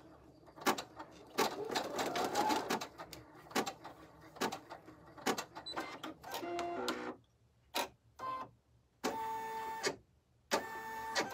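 Computerized embroidery machine stitching a short placement line: rapid needle clicks over the running motor, stopping about seven seconds in. A few single clicks and two steady mechanical buzzes of about a second each follow near the end.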